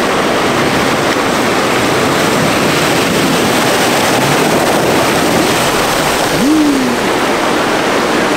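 Steady, loud rushing of water churned up by an off-road vehicle driving through a creek crossing. About six and a half seconds in, a short tone rises and then falls.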